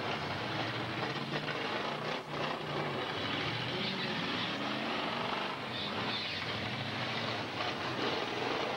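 Several demolition derby cars' engines running and revving as they manoeuvre and push into one another, a dense mechanical din with a few sharper knocks.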